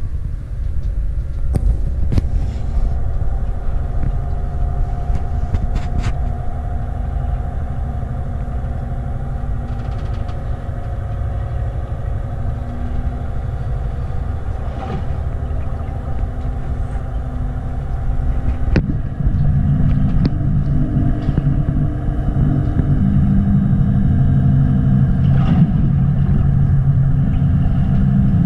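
Steady low rumble and hum of a ship's machinery, heard from inside a cabin, with a few light knocks. About two-thirds of the way through the hum gets louder and deeper.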